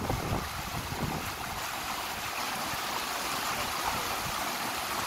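Small rocky mountain stream rushing over boulders: a steady rush of white water.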